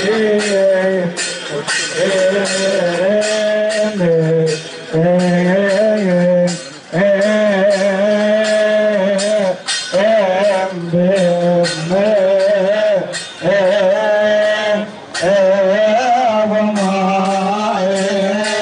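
Male voices singing a Coptic hymn in long, drawn-out melodic lines, with percussion struck at regular intervals throughout.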